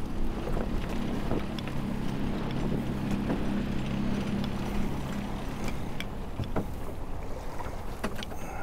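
Wind and choppy water against a small fishing boat's hull, with a low steady hum for about the first five seconds that then fades, and a few light knocks.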